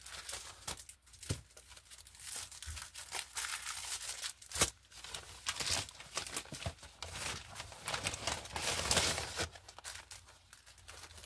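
Plastic packaging crinkling and rustling as items are pulled by hand out of a poly mailer bag and a clear plastic sleeve, with a couple of sharper snaps.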